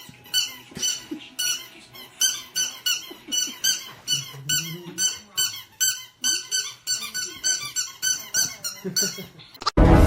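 A rapid, regular run of short high-pitched squeaks, about three a second, with faint low gliding sounds beneath, cut off abruptly near the end.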